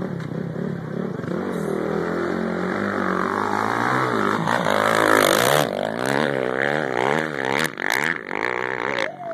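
Off-road race dirt bike approaching at speed, its engine growing louder and rising in pitch as it passes close by about five seconds in. Its pitch then rises and falls again and again as it pulls away.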